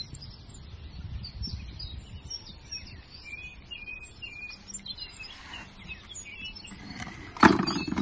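Small songbirds chirping and twittering over a low background rumble, with one loud knock about seven and a half seconds in.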